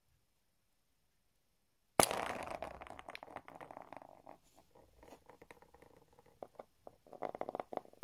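In-shell walnuts knocked into each other and rolling across a hard tabletop: a sharp crack about two seconds in as one walnut strikes the cluster, then a rumbling clatter of rough shells rolling and knocking that fades out over a couple of seconds, and another short rolling rattle near the end.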